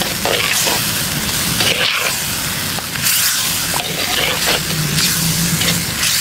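Thick curry gravy sizzling in a pan while a spoon stirs it, scraping and sloshing in repeated strokes.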